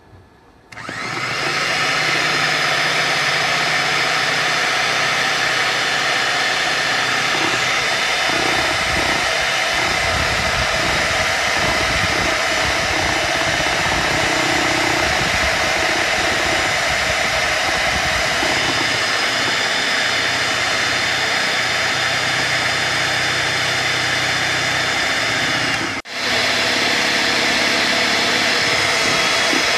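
Electric hand mixer running steadily, its twin beaters whipping cream and milk. It starts up about a second in and drops out for a moment near the end.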